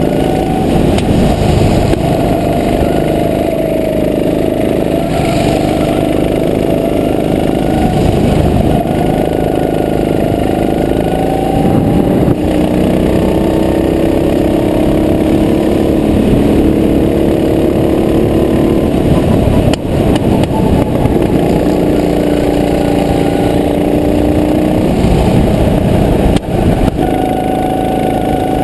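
Go-kart's small engine running at speed, its pitch rising and falling again and again as the throttle opens on the straights and eases into the corners.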